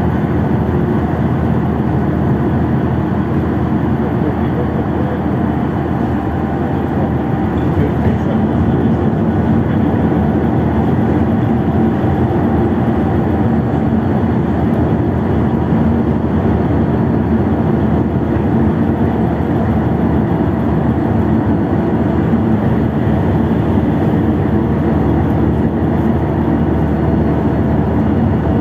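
Cabin noise inside a LiAZ 6213.65 city bus cruising at highway speed: a steady engine drone mixed with road and tyre noise.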